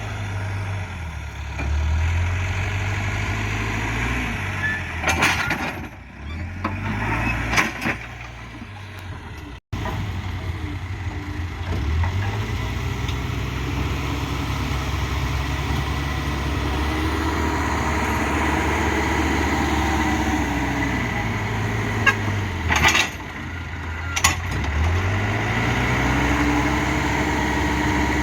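Backhoe's diesel engine running and revving up and dropping back several times as it works, with a few sharp clanks.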